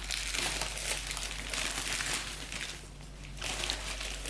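Crinkling and crackling of packaging being handled, dying down briefly about three seconds in and then resuming.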